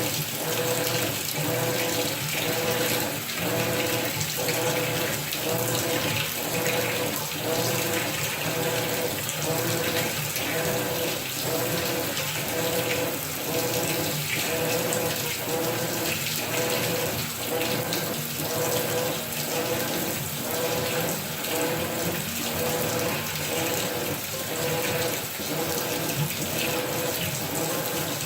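Maytag top-load washing machine with an agitator running, its water sound steady but pulsing in a regular back-and-forth rhythm.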